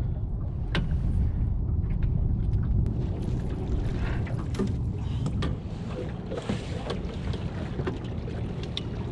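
Steady low rumble of wind and water around a small fishing boat, with scattered sharp knocks and clicks as a landing net pole and fishing gear are handled.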